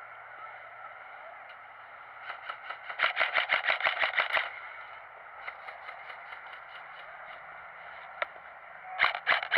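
Airsoft guns firing on full auto: a burst of rapid, evenly spaced shots lasting about two seconds, a fainter run of shots after it, and another loud burst near the end.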